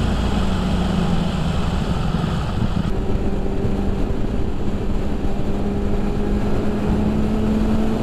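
2019 BMW S1000RR's inline-four engine running under way. Its pitch drops about three seconds in and then climbs slowly, with wind noise over the microphone.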